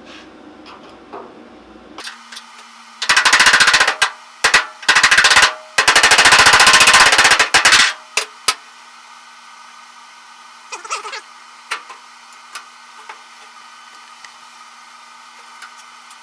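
Arc welding on the steel quarter panel of a 1931 Ford Model A: four bursts of crackling arc starting about three seconds in, the last about two seconds long. A few faint squeaks follow later.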